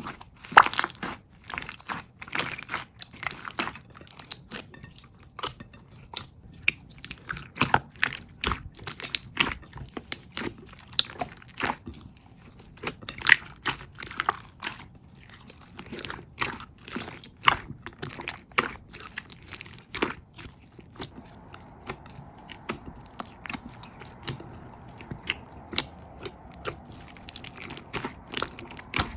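Hands pressing and squeezing jelly slime, giving irregular sticky pops and clicks, a few a second.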